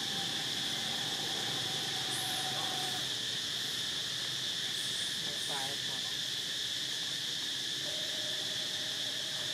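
Steady, unbroken high-pitched drone of an insect chorus, with a few faint short chirps and one brief call a little past the middle.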